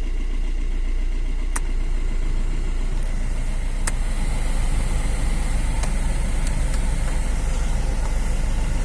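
Fiat Punto 1.4-litre petrol engine idling steadily, with two sharp clicks about a second and a half and four seconds in.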